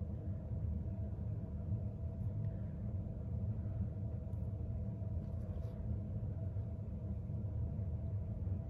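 Steady low background hum and rumble with a faint steady tone over it, and a few faint light touches about four to six seconds in.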